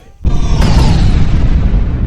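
A sudden loud boom about a quarter second in, followed by a long low rumble whose hiss slowly fades, like an explosion.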